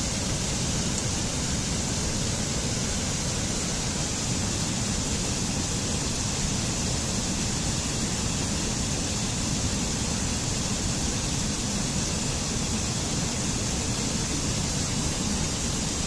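Waterfall rushing steadily: an even hiss of falling water that holds one level throughout.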